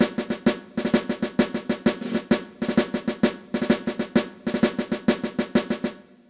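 Intro music of rapid snare drum strokes and rolls in a steady rhythm, fading out near the end.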